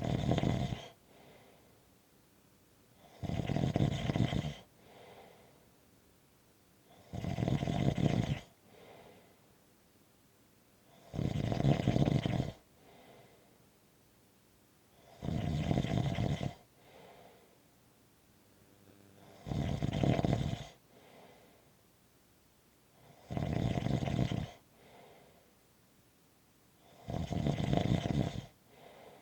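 Snoring in a slow, even rhythm: eight loud snores about every four seconds, each followed by a much softer breath.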